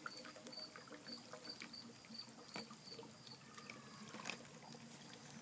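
Dry ice pieces dropped into warm water in a PVC pressure chamber, bubbling and fizzing faintly as they sublimate, with a few light clicks as pieces go in.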